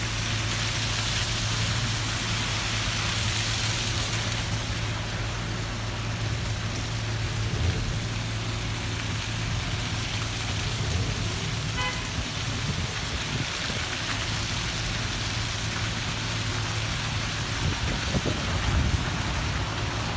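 Cars and a van on a slushy, snow-covered street: a steady low engine hum under a constant hiss of tyres and slush.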